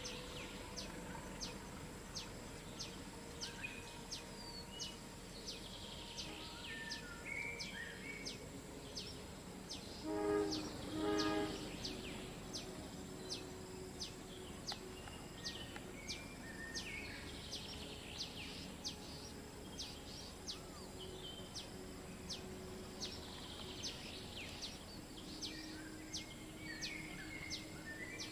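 Two short blasts of a distant diesel locomotive's horn about ten seconds in, over a steady rural background. A repeated high chirp sounds about twice a second throughout.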